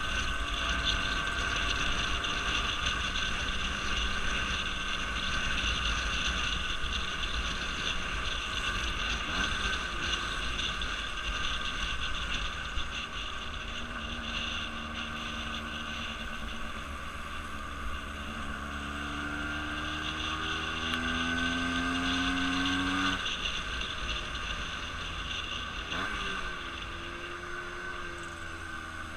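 Engine running steadily with a constant high whine and low rumble. A second set of engine tones rises in pitch from about two-thirds of the way in and cuts off suddenly a few seconds later.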